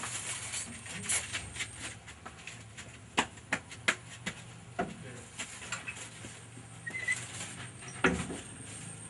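Rubber flip-flops slapping on a wet concrete floor as someone walks, a string of sharp, irregular slaps, with a louder knock about eight seconds in.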